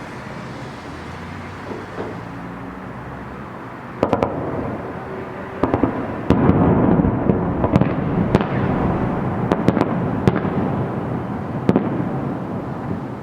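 Fireworks salute going off: a few sharp bangs about four seconds in, then a dense barrage of bangs and cracks over a rolling, echoing rumble for about six seconds, easing off near the end.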